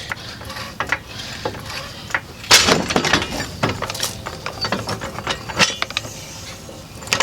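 Car jack being worked to raise a 2004 GMC Envoy: a run of metallic clicks and clanks, loudest and densest about two and a half seconds in.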